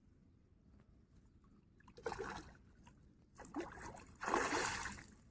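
Water splashing in three bursts, the last the longest and loudest.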